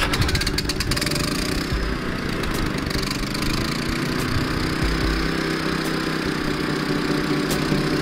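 Champion 3400 dual fuel inverter generator's engine running, with rapid pulsing in the first second and a half before it settles into a steady hum.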